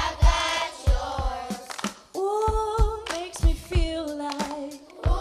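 Live pop song sung by a woman and a children's choir in call and response, each line sung by the woman and then echoed by the children, over a beat of low thumps.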